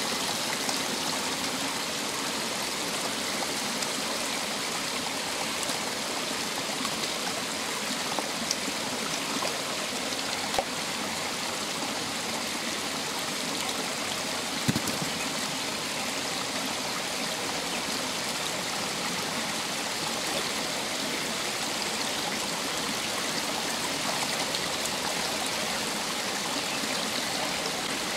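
Shallow rocky stream running steadily, a continuous rush of water. A couple of brief knocks come through, about ten seconds in and again near fifteen seconds.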